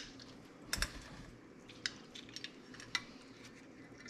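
Hand-held metal citrus press clicking and knocking against a stainless steel bowl as half a lime is squeezed: four sharp clicks about a second apart, the second with a dull thud.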